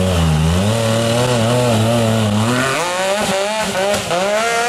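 Yamaha YXZ1000R side-by-side's three-cylinder engine revving hard under load on a steep rock climb. The pitch holds fairly steady at first, then about two-thirds of the way in jumps higher and rises and falls again and again as the throttle is worked.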